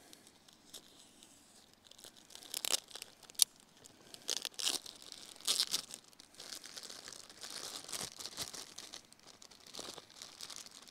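Sandwich wrapping being crinkled and torn open as a store-bought sub is unwrapped. The crackles and rips start about two seconds in and come in irregular bursts.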